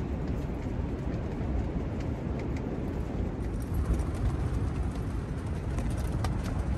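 Strong, gusting onshore wind buffeting a roof-top tent, heard from inside: a steady heavy rush with rumble in the low end and a few sharp ticks from the shaking tent.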